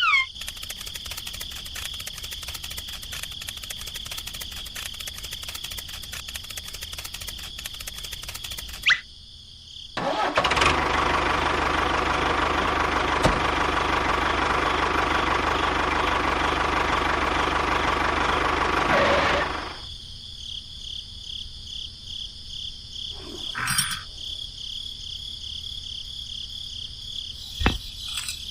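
Small motor of a homemade mini tractor running in spells: a rapid ticking run for about nine seconds, a brief stop, then a louder, busier run from about ten seconds in that cuts off at about twenty seconds. Crickets chirp steadily behind it.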